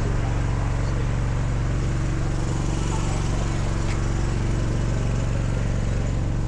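An engine running steadily, a low, even drone that holds without change.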